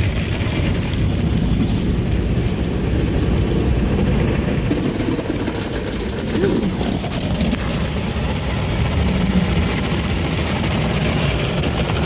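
Cloth brushes of a RYKO SoftGloss MAXX soft-touch car wash scrubbing over the car's windshield, roof and sides while water sprays. Heard from inside the car's cabin, it is a steady, dense swishing and drumming.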